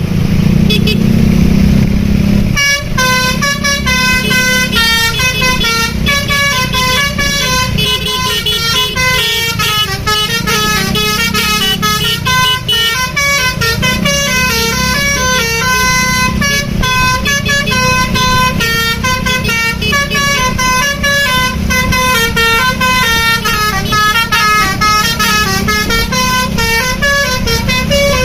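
Bus basuri (telolet) musical horn playing a long melody of short notes that step up and down, starting about two and a half seconds in, over a low engine rumble.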